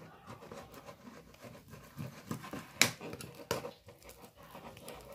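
Slime made of white glue and laundry detergent being stirred: irregular sticky, wet squelches and small clicks, with one sharper click about three seconds in.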